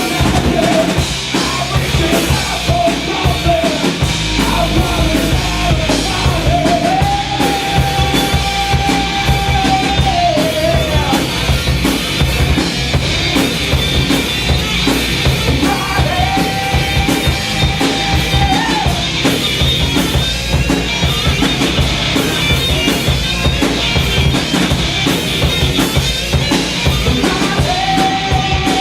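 Heavy rock band playing live and loud: a busy drum kit with crashing cymbals under guitars and bass. Long held high notes come in about seven seconds in, again around sixteen seconds, and once more near the end.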